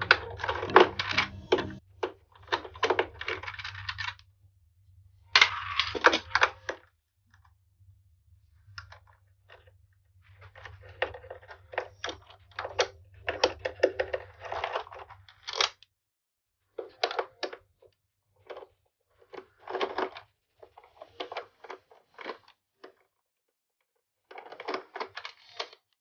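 A screwdriver turning out screws from a PlayStation 5's plastic and metal chassis, with small screws and the tool clicking and scraping as they are handled. It comes in short irregular spells with brief pauses between them.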